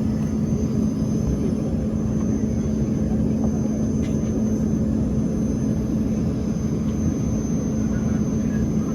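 Steady engine and cabin noise heard inside the cabin of a small airliner: an even rumble with a constant low hum and a faint high whine throughout.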